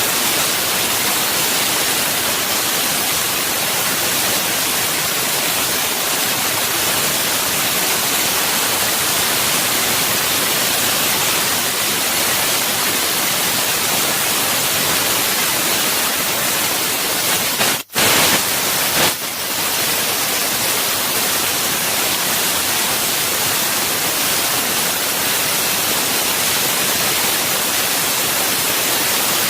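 2000 W fiber laser cutting machine cutting sheet metal: a loud, steady hiss from the assist-gas jet, breaking off for an instant about eighteen seconds in.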